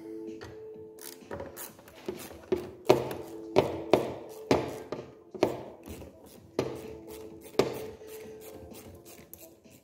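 A flat screwdriver working at the metal hose clamp on a car's air intake hose: a string of sharp clicks and scrapes, roughly one a second.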